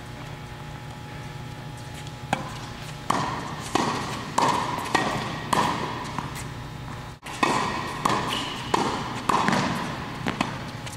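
Tennis ball being struck by rackets and bouncing on the court: sharp knocks, each with a ringing echo, starting about two seconds in and coming roughly every two-thirds of a second, over a steady low hum.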